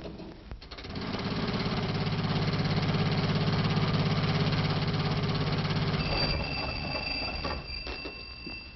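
Old car engine chugging with a fast, even beat, fading away over the last couple of seconds. Two faint high steady tones come in near the end.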